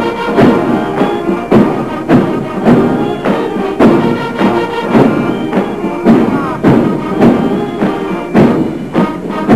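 Military brass band playing a march, with a bass drum marking a steady beat about twice a second.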